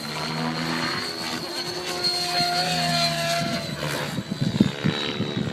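Electric RC helicopter flying: a high motor whine over the steady hum of the spinning rotor blades, with the pitch shifting slightly as it manoeuvres and growing briefly louder near the end.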